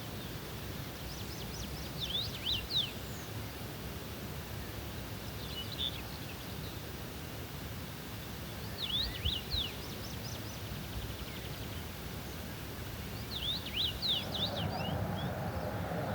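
A songbird singing short, quick phrases of high swept notes, four phrases a few seconds apart, over a steady low outdoor rumble. A louder rushing noise comes in near the end.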